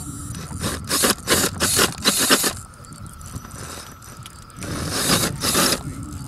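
Radio-controlled rock crawler grinding and scrabbling on bare rock as it is driven on a steep slab, in two loud spells of scraping: one about a second in, lasting nearly two seconds, and a shorter one near the end, with mechanical drivetrain noise.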